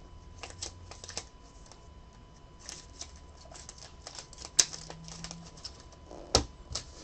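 Trading cards in rigid plastic top loaders clicking and clacking against one another as a stack is shuffled and sorted by hand. There is a string of short taps, with a sharper clack about four and a half seconds in and another near the end.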